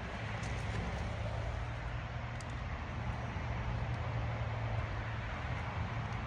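An engine running steadily, a low hum under a broad noisy background, with a few faint clicks.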